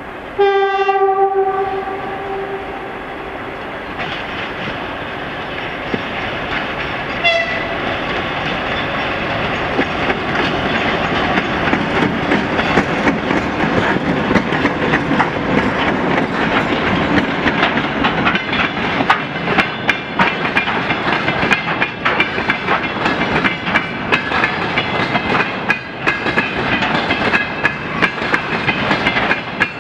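A 2TE116 diesel locomotive sounds its horn in one blast of about two seconds, then gives a short toot about seven seconds in. A train of tank cars then rolls past, growing steadily louder, with a fast clickety-clack of wheels over rail joints.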